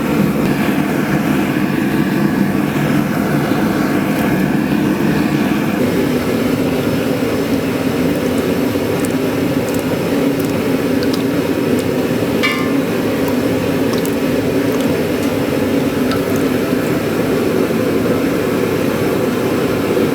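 Angle grinder with a cut-off wheel cutting steel pieces apart, running steadily under load with an even drone; the sound's character shifts slightly about six seconds in.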